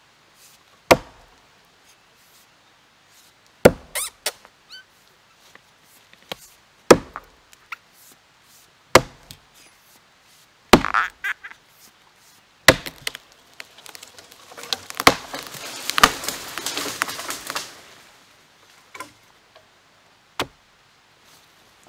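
Axe chopping into a green tree limb: about ten sharp blows a couple of seconds apart. Partway through comes a few seconds of crackling and rustling as the limb tears and breaks.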